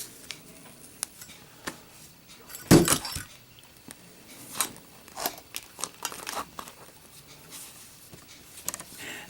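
Street-chrome Zippo lighter dropped onto a hard surface: a loud metallic clatter about three seconds in with a quick second bounce. Lighter metal clicks and clinks come before and after it.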